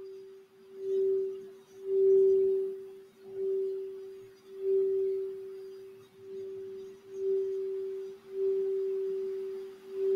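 Crystal Alchemy singing bowl tuned for the throat chakra, sung by rubbing a wand around its rim. It gives one steady pure tone that swells and fades about once a second.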